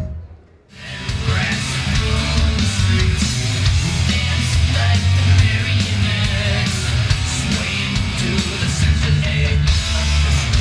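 Rock music with guitar and a steady drum beat, kicking in about a second in after a brief drop almost to silence.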